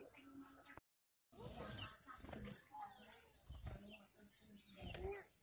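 Gouldian finches giving faint, short chirping calls, a few scattered rising-and-falling notes, with the sound dropping out completely for half a second about a second in.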